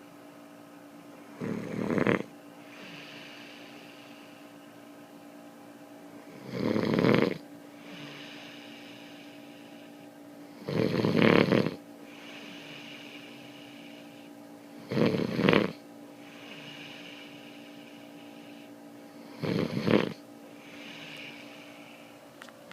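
A man snoring in deep sleep: five loud snores on the in-breath, about one every four to five seconds, each followed by a quieter breathy out-breath. A steady faint hum runs underneath.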